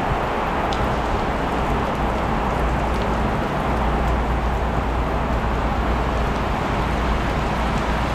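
Heavy rain pouring steadily in a wind-driven downpour, a constant hiss with a low rumble under it.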